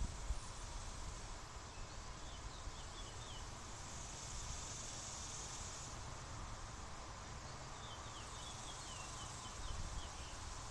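Quiet outdoor background: a steady low rumble with a few faint, quick, high chirps about two seconds in and again near the end. No horn sounds.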